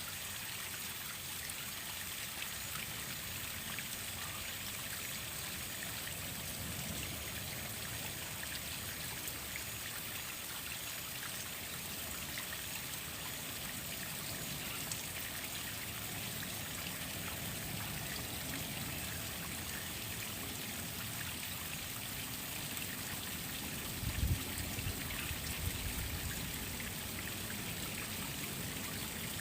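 Steady rush and splash of a waterfall, an even hiss of falling water. A brief low rumble comes in near the end.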